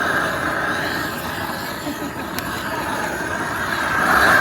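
Garlic and onions sizzling in hot oil in a pan, a steady loud hiss, with one sharp click about two and a half seconds in.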